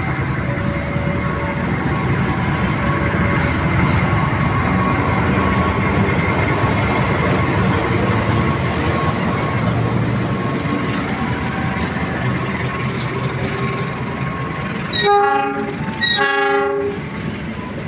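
Diesel-electric locomotive and passenger carriages passing close by, with the engine running and the wheels clattering over the rails. Near the end come two short blasts of the train horn, the second a little longer.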